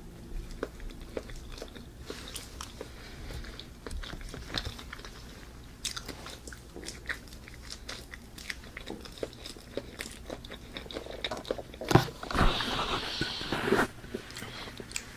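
Close mouth sounds of a person chewing and eating banana: scattered wet clicks and smacks. About twelve seconds in, a louder rough sound lasts nearly two seconds.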